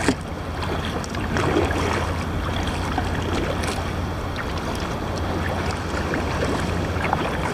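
Wind buffeting the microphone over small splashes and water lapping against a fishing kayak, with one sharp knock just at the start.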